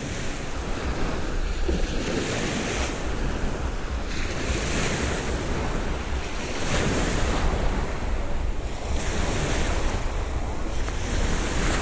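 Small waves washing up on a sandy beach, the surf swelling every couple of seconds, with wind rumbling on the microphone.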